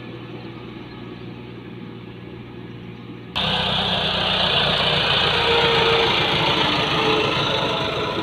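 Massey Ferguson tractor's diesel engine running under load as it pulls a sand-laden trolley. It starts as a steady, moderate hum, then about three seconds in turns abruptly much louder and closer as the tractor passes right by.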